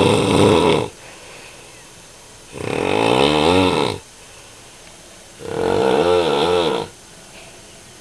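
A man snoring loudly in his sleep: snores about every three seconds, each lasting about a second and a half.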